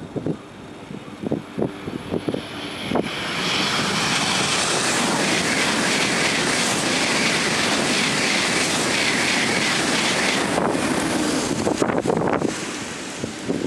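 Shinkansen 300 series high-speed train passing at speed: the rush swells about three seconds in, holds loud and steady for about seven seconds, then falls away. Wind buffets the microphone before and after the pass.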